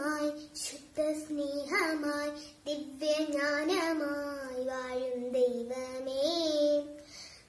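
A young girl singing solo and unaccompanied, holding long sustained notes that bend gently in pitch, with a brief pause near the end.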